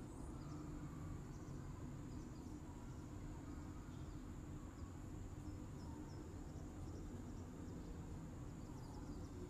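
Faint outdoor background: a steady low rumble and hiss, a thin steady high tone, and scattered faint high chirps.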